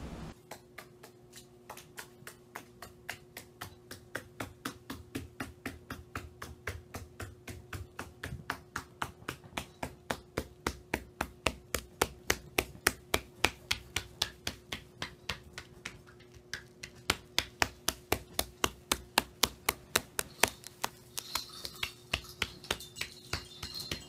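A small parrot tapping on a bare wooden floor in a quick, even series of clicks, about four a second, louder at times, over a faint steady hum.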